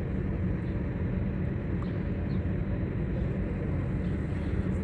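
Steady low rumble inside a car's cabin.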